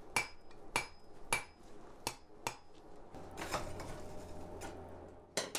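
Hand hammer striking hot steel over the edge of an anvil while forging a dragon's snout: about five sharp blows in the first two and a half seconds, roughly half a second apart. Then a steadier noise with a low hum for about two seconds, and another blow near the end.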